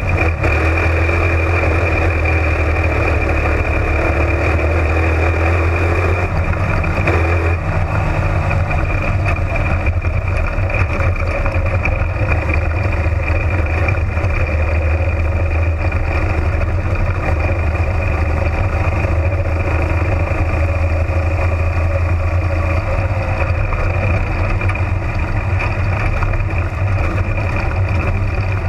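Florida Spec Modified (slingshot) dirt race car's engine running steadily as the car laps the oval, heard from inside the cockpit, its pitch shifting slightly.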